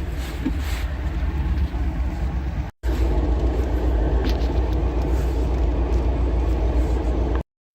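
A car on the move: a steady low rumble of engine and road noise. It drops out for a moment about three seconds in and cuts off abruptly near the end.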